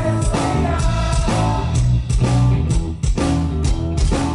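Rock band playing live: electric guitar and bass guitar over a steady beat, an instrumental stretch with no singing.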